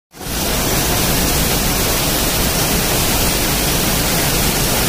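Heavy rain, with water pouring off a roof edge: a steady, loud rush of noise.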